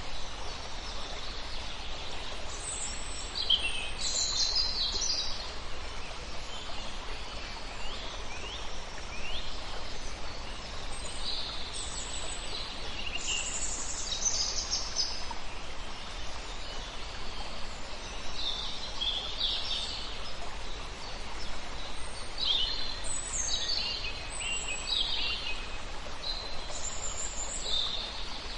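Wild birds singing and chirping, short calls and trills every second or two, over a steady background hiss.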